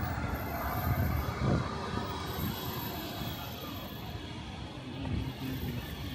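Busy city road traffic: cars, buses and trucks going past in a steady rumble, swelling a little as vehicles pass close.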